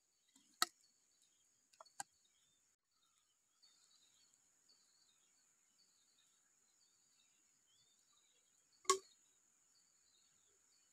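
Short knocks from handling bamboo tubes: two light taps in the first two seconds and a louder knock about nine seconds in. Behind them a steady high insect drone and scattered bird chirps.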